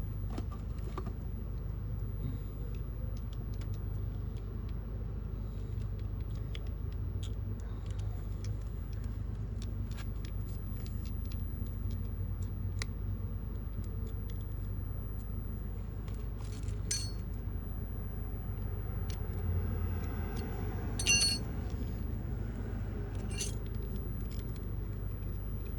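Scattered small clicks and light metallic clinks of a bracket being worked off a fuel pump assembly by hand, over a steady low hum. A few sharper clinks with a brief ring come in the second half, the loudest about 21 seconds in.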